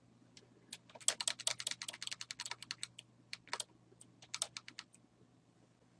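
Typing on a computer keyboard: a quick run of key clicks, then a few scattered keystrokes, ending about five seconds in.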